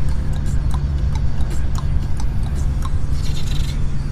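Mouth beatboxing: scattered clicks and a short hissing hi-hat sound about three seconds in, over the steady low drone of the truck's engine heard inside the cab.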